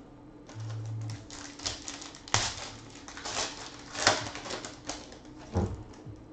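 Foil trading-card pack being crinkled and torn open by hand: a run of sharp crackles with a few louder snaps.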